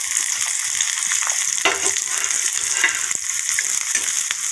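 Chopped onions and panch phoron seeds sizzling in hot oil in a cast-iron kadai, with a spatula stirring and scraping them against the pan.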